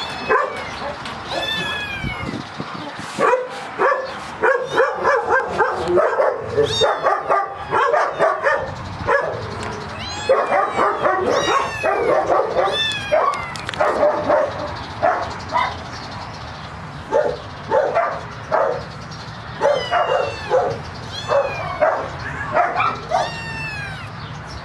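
Several young kittens mewing over and over, short, high cries that rise and fall and often overlap, with a quieter lull about two-thirds of the way through.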